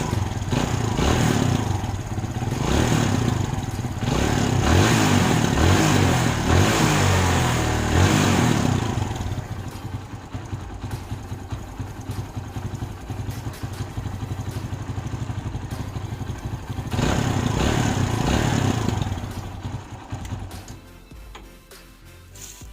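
Kawasaki Barako 175's single-cylinder four-stroke engine running, revved up and down. It surges over the first eight seconds, settles to a steadier run, revs again about seventeen seconds in, then fades near the end. It is running after its carburetor was cleaned and the float adjusted to stop hard starting.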